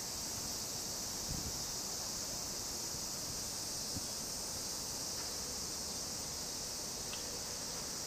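Steady chorus of cicadas, a continuous high-pitched buzzing that holds unchanged, over a weak low background rumble.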